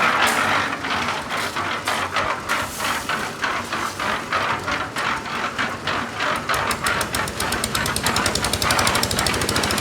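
Concrete-mixing machinery engine running with a fast, regular knocking, which becomes steadier and quicker about two-thirds of the way through.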